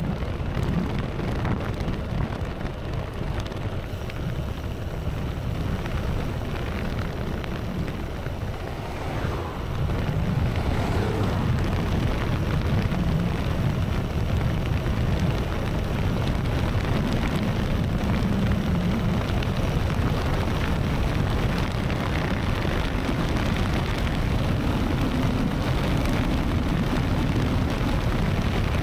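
Wind buffeting the microphone of a moving bicycle: a steady low rumble that gets louder about ten seconds in.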